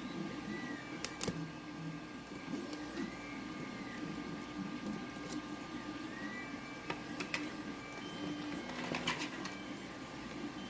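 A 3D printer running: steady motor whine with stepper-motor moves that rise and fall in pitch several times. Sharp light clicks of a lock pick working the lock's pins come through now and then.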